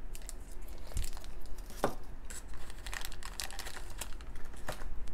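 Thin clear plastic bags around small toy figures crinkling as fingers handle them: a steady run of small crackles and clicks, with a few sharper ones.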